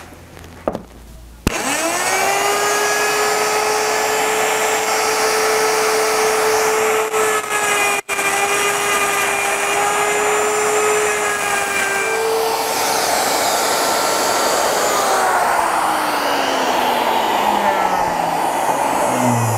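Plunge router with a half-inch straight cutting bit switched on about a second and a half in, quickly spinning up to a steady high whine as it cuts the final pass of a rabbet along a plywood board. It is switched off near the end and winds down, its whine falling in pitch over the last few seconds.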